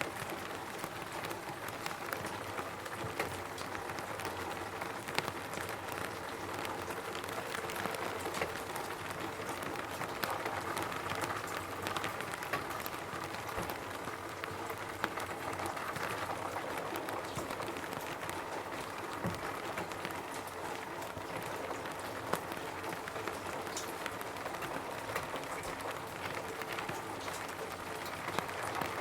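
Steady rain falling on a roof, a constant patter with many separate drops ticking sharply over it.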